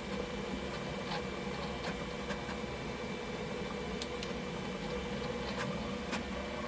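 Elegoo Centauri Carbon 3D printer running at the start of a print: a steady fan and motor hum with a few faint clicks scattered through it as the print head moves.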